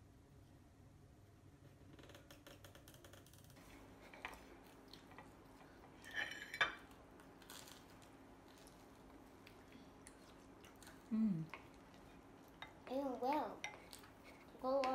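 Dishes and cutlery clinking lightly at a meal table. A short high squeak comes about six seconds in, and small children's voices break in briefly a few times in the last few seconds.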